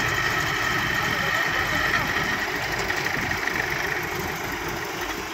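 Diesel engine of a paver finisher running steadily as the machine creeps up onto a flatbed truck, the engine note easing a little near the end.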